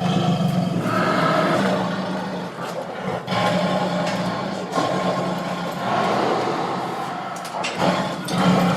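Tiger growling and roaring: a run of long, rough, loud growls, each several seconds long, with brief breaks between them.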